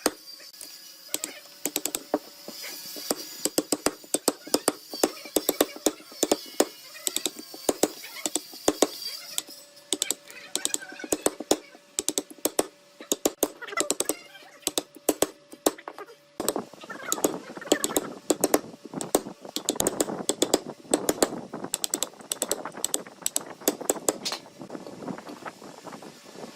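Rapid, irregular sharp taps and knocks of hand woodworking on wood. About sixteen seconds in they give way to a rougher, denser scraping noise.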